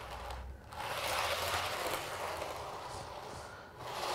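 Model railway coaches rolling along newly laid track as they are pushed by hand to test it: the wheels run on the rails in a steady rolling rattle. The sound drops away briefly about half a second in and again near the end, where the rake stops and reverses direction.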